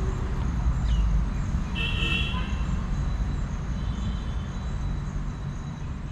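Outdoor ambience: a steady low rumble with a few brief high chirps about two and four seconds in, fading out near the end.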